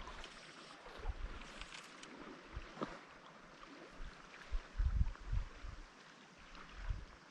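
Shallow river riffle running steadily, with irregular low thumps on the microphone, the strongest about five seconds in.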